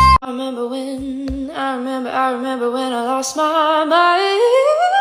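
A single voice holding a steady low sung note for about three seconds, then gliding upward near the end, after a song cuts off abruptly at the start.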